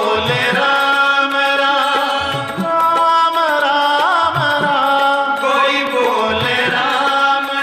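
Devotional song: a voice holds long notes with sliding ornaments over instrumental accompaniment and a drum beat.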